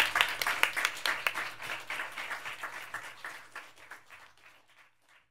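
Applause, many hands clapping, dying away steadily over about four seconds to silence.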